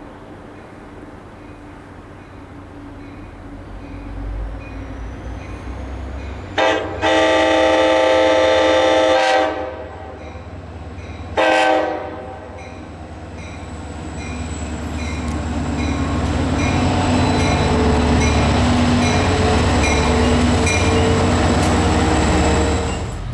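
Locomotive air horn sounding a long blast of about three seconds and then a short blast, each a chord of several tones. Then the rumble of the train grows louder as it comes up and passes, with wheel noise on the rails.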